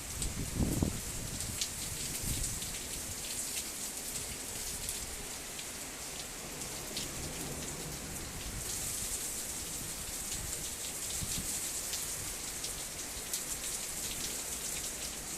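Heavy rain and sleet falling steadily, a dense hiss peppered with many fine ticks of drops striking a surface. A brief low rumble sounds about half a second in.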